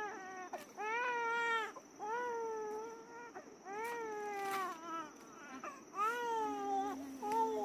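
Infant crying in a run of about six wailing cries, each close to a second long, rising and then falling in pitch.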